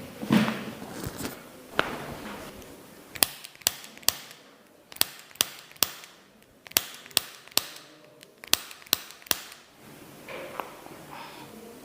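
A series of sharp clicks during chiropractic treatment, coming in four quick groups of three, each group about a second and a half after the last. Softer rustling movement comes near the start.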